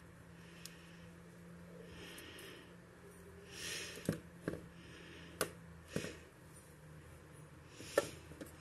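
Plastic Teenage Mutant Ninja Turtles action figures being handled and set down on a tabletop: about five light clicks and knocks in the second half, the loudest near the end. Soft breathing close to the microphone runs underneath.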